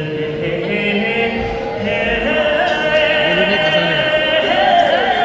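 Live singing with musical accompaniment, the voice holding long notes.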